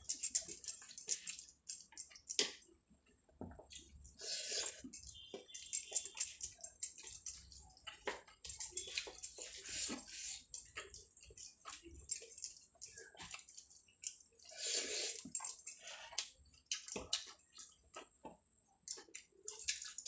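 Close-up eating sounds: wet smacking, squishing and chewing in irregular clusters of short clicks as a mouthful of rice and curry is eaten.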